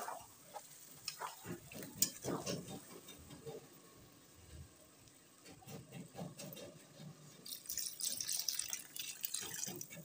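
A spatula stirring chicken curry in a metal kadhai just after water has been added: wet sloshing with scattered scrapes and knocks on the pan. Near the end the watery gravy hisses and bubbles in the hot pan.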